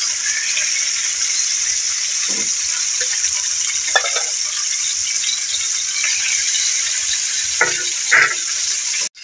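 Chicken wings sizzling in a little oil in a frying pan: a steady high hiss, with a few light knocks from a fork moving them in the pan. The sound cuts off suddenly near the end.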